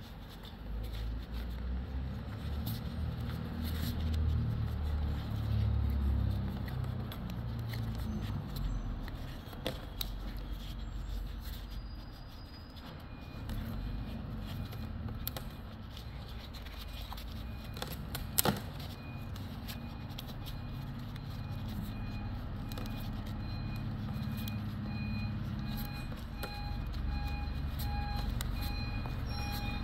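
A vehicle engine rumbling, with a reversing beeper sounding repeatedly from about halfway through; light clicks and one sharp knock past the middle.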